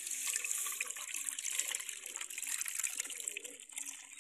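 Liquid pouring steadily from a pot through a small mesh tea strainer into a metal bowl, a continuous trickling pour.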